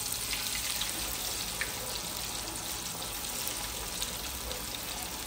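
Flour-dredged lukanani fish deep-frying in hot oil in a cast-iron pot: a steady bubbling sizzle with small scattered crackles.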